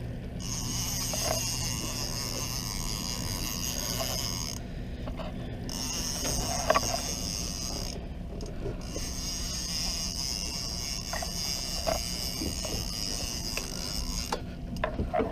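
Fishing reel buzzing and clicking as a hooked leerfish pulls line against it and line is wound back in. The buzz stops briefly three times, short clicks come from the reel throughout, and a steady low hum runs underneath.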